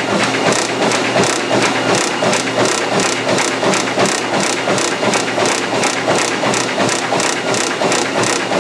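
Motorized treadmill running with a steady motor hum, and an even beat of footfalls on the belt about three times a second.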